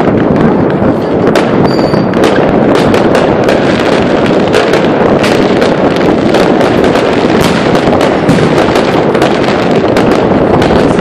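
Fireworks and firecrackers going off in many places across a city at once. The result is a loud, unbroken din of overlapping bangs and crackling, with many sharp cracks standing out.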